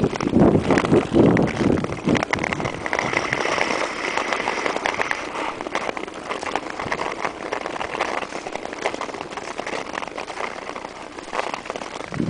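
Ice skate blades scraping and crackling over rough natural ice, stroke after stroke, heavier and louder in the first two seconds, then an even hiss.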